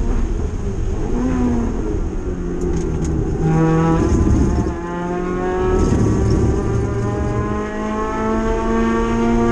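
Spec MX-5 race car's four-cylinder engine heard from inside the cockpit. It runs at high revs, drops in pitch as the car slows for a corner about three and a half seconds in, then climbs steadily as it accelerates out.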